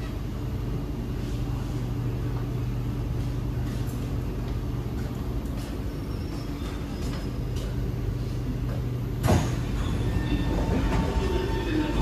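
SMRT Kawasaki C751B metro train running, heard inside the carriage: a steady rumble with a low hum. About nine seconds in comes a sudden loud thump, after which the running noise is louder and a thin steady tone joins in.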